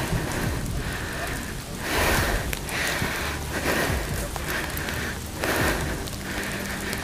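Steady rain hiss, with fabric rustling and brushing close to the microphone in an uneven rhythm as the wearer moves.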